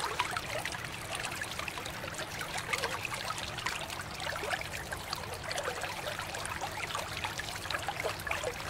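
A stream of running water splashing steadily over a small plastic toy airplane and the hands rinsing it, with water trickling away across the basin floor.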